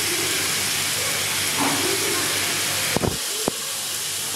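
Marinated chicken pieces sizzling steadily in oil in a nonstick frying pan over medium-high heat. A couple of sharp knocks come about three seconds in.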